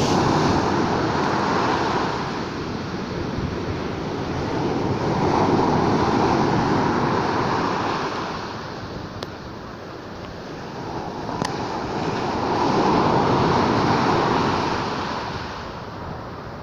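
Sea waves breaking and washing on the shore, the surf swelling and fading about three times.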